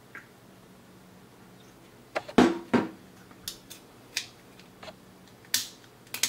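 A knife blade scraping and shaving sagging support material off a 3D-printed PLA bearing race, in short, irregular scrapes. A couple of louder knocks from handling the plastic part come a little over two seconds in.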